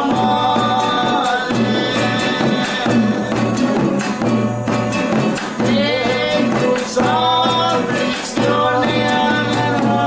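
Traditional folk song: a singing voice holds long, wavering phrases over strummed string accompaniment.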